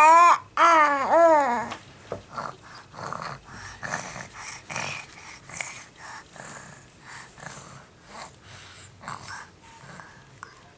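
A baby's voice: two loud drawn-out coos in the first two seconds, the second wavering up and down before falling away. After that come soft wet clicking and sucking sounds as she mouths her fist, with her breathing.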